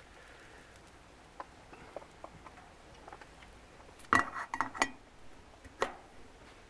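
Metal lid set onto a small metal camp cooking pot resting on a woodstove top: a few faint ticks, then a quick cluster of loud clinks and rattles about four seconds in, and one more clink a second later.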